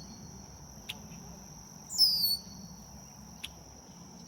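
A bird gives a short, downward-sliding high call once about two seconds in, over a steady high-pitched insect drone. Two faint clicks come in between.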